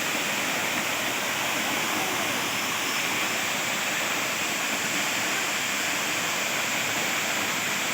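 Steady rush of running water, even and unchanging.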